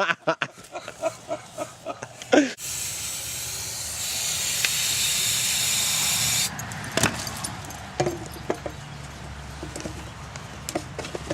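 Aerosol can spraying fuel into a potato cannon's chamber: a steady hiss of about four seconds that cuts off suddenly, followed by a single sharp knock.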